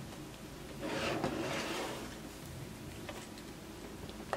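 Something slid across a tabletop: a soft scraping rub about a second in that lasts about a second, then a light click near the end.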